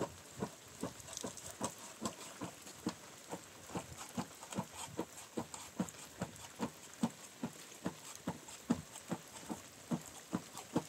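Steady, evenly spaced thuds, about two and a half a second, as of something being struck or worked over and over.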